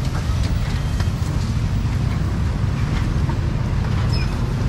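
Steady low rumble of street traffic and engines, with faint light clatter above it.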